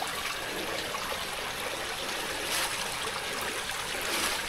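Small mountain stream running steadily, a continuous trickling rush of water.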